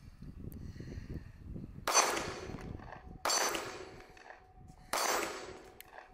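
Three shots from a Sig P365 XL 9mm compact pistol, about a second and a half apart, each with a short echoing tail.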